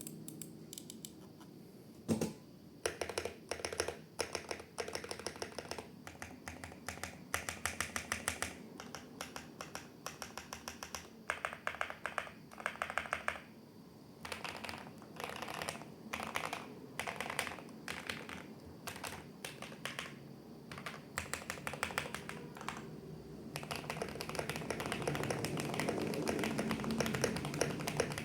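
GMMK Pro mechanical keyboard with MMD Princess V4 switches being typed on, keystrokes clattering in bursts with short pauses between them. About 23 seconds in the typing becomes fast and continuous, and a little louder.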